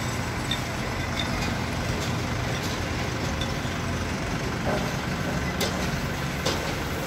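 Engine running steadily in the background of a construction site: a low hum under a wash of outdoor noise, with a few short clicks and knocks, the clearest near the end.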